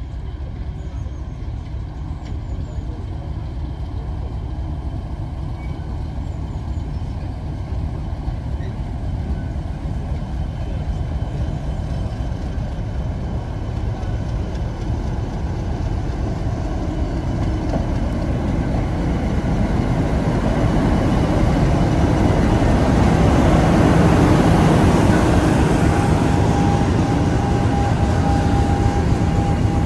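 Class 50 diesel locomotive's English Electric 16-cylinder engine running as it hauls a short train slowly past. It grows steadily louder, peaking about three-quarters of the way through as the locomotive passes. A steady high-pitched tone joins it in the last few seconds as the following vehicles roll by.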